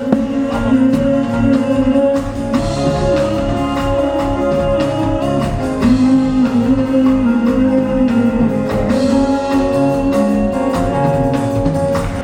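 Band music with a steady drum beat under a long held note and a wavering melody line.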